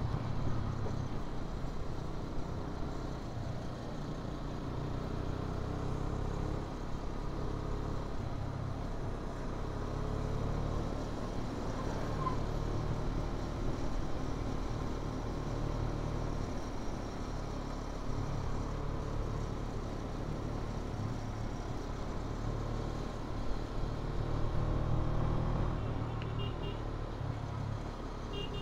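A vehicle's engine running steadily on the move, with an even hiss of road noise.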